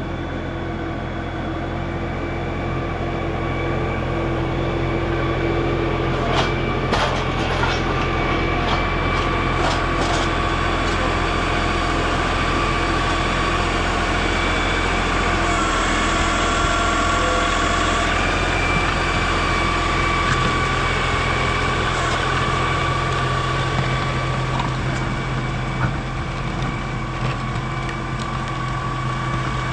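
Farm tractor engine running steadily, its pitch shifting a little partway through as the load changes, with a few sharp metallic clanks a few seconds in.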